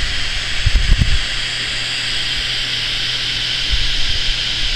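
A steady hiss with a low hum under it, broken by a few dull low thumps about a second in and again near the end.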